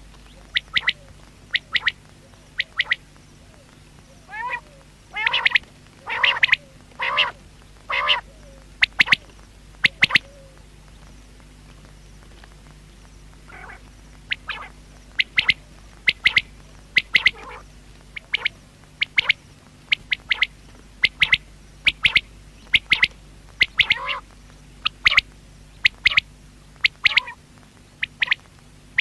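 Common quail calling: short, sharp notes repeated in quick runs of two or three, with a stretch of longer, lower notes about a third of the way in. A faint steady hum lies underneath.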